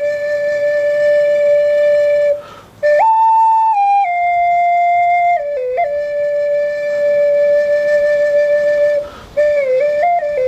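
A replica Matlatzinca flute (Nipipi, a Mesoamerican flute) played solo in long held notes, with quick little turns between them. A higher note about three seconds in steps down in pitch, and the playing breaks briefly for breath twice.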